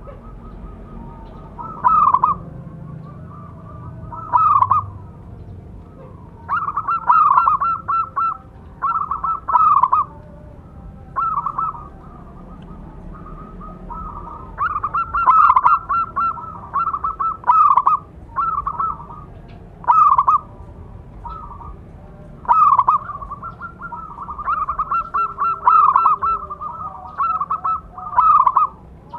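Zebra dove (perkutut) singing: short runs of quick coos, one every second or two, with several phrases strung together into longer runs in places.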